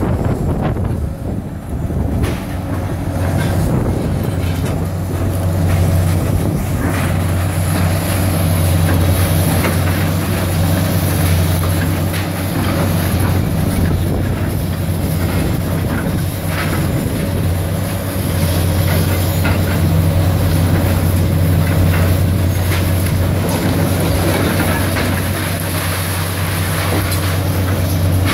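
Diesel engines of demolition excavators, including a high-reach rig, running steadily under load, with irregular crunching and clatter of concrete and brick as the hydraulic jaws bite into the wall and debris falls.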